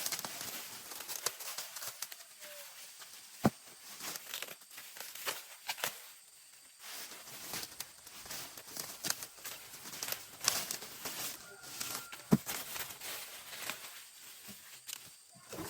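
Leaves and plant stalks rustling and tearing as crops are handled by hand, with many small crackles and a few sharp snaps, the loudest about three and a half seconds in and again near twelve seconds.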